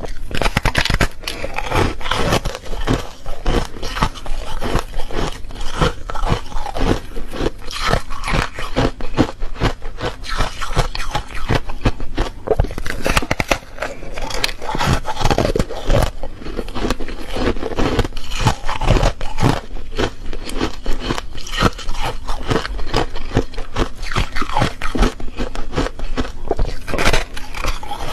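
Refrozen foam ice being bitten and chewed: a dense, brittle crunching and crackling as the frozen foam breaks between the teeth.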